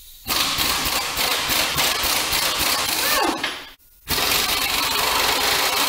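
Handheld power grinder with a wire wheel run against metal in two bursts, the second starting about four seconds in; each burst ends with a falling whine as the wheel spins down after the trigger is let go.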